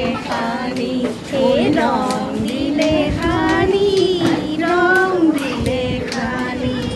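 Women singing a song, with long held, wavering notes.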